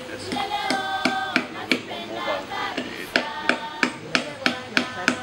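Hammer driving nails into a wooden signpost: a series of sharp blows, irregular at first, then a steady run of about three a second in the second half, over a choir singing.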